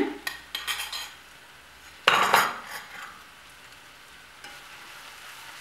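A spoon clicks against a plate as crushed onion is scraped off it. About two seconds in, the onion drops into hot oil in a frying pan with a loud burst of sizzling that fades to a low, steady sizzle.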